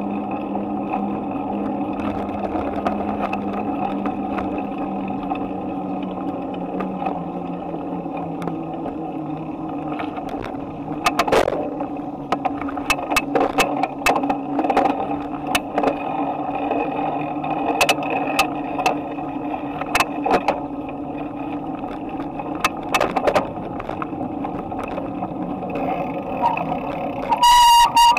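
Bicycle riding noise picked up by a camera mounted on the handlebars: a steady rolling hum throughout. From about eleven seconds in come scattered knocks and rattles, and a brief loud ringing tone sounds near the end.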